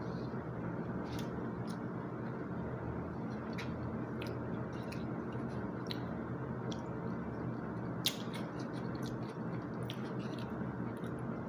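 Close-up eating sounds: chewing, with scattered small clicks of plastic cutlery against a plastic meal tray, the sharpest about eight seconds in, over a steady low background hum.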